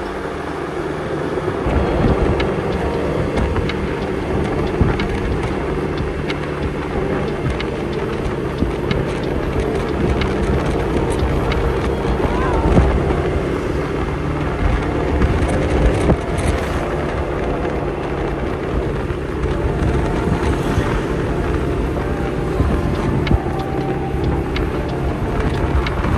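Motorbike engine running steadily on the move, with road noise and wind buffeting the microphone.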